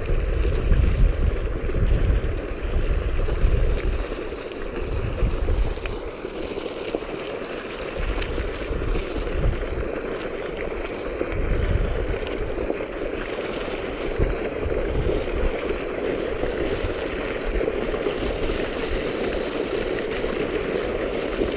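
Water gushing from an outlet pipe and splashing into a canal: a steady rushing and splashing. Wind buffets the microphone in uneven gusts over it.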